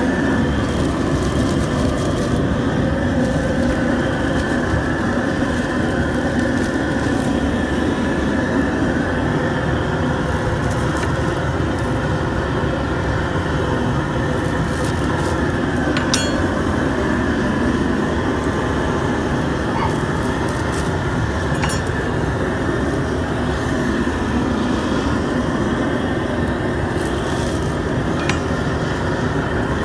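A loud, steady roar of noise that does not change, with a few faint sharp clicks of a knife on a plastic cutting board.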